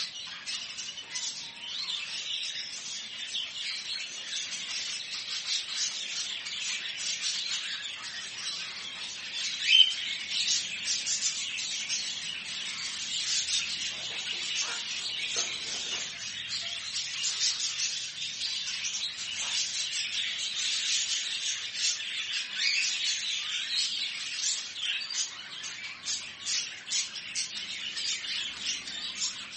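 Many small caged birds chirping and twittering at once in a continuous dense chatter, with one louder sharp call about a third of the way in.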